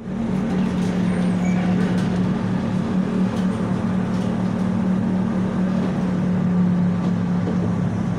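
Tatra T3 tram in motion, heard from inside the passenger cabin: a steady low hum over an even running noise, with a few faint clicks.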